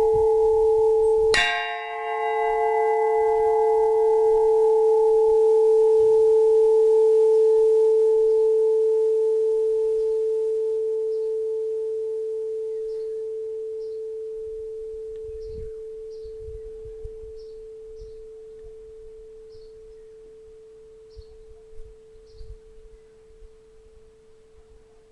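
A large Orthodox monastery church bell is struck once more about a second and a half in, over its still-sounding previous stroke. It is then left to ring out, its deep hum fading slowly over some twenty seconds.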